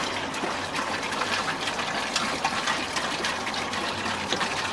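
Water pouring steadily from a one-gallon plastic jug into a plastic storage tote.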